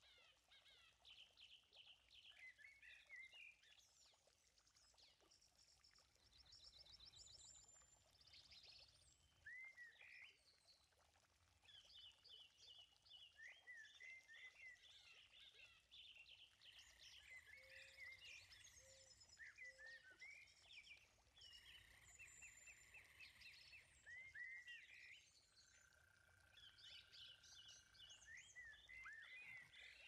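Faint birdsong: several birds chirping, with short upward-hooked calls, rapid trills and a few held whistled notes.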